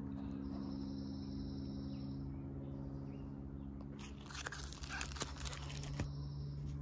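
A photo album page being turned, its plastic sleeves crinkling and clicking for about two seconds starting some four seconds in, over a steady low hum.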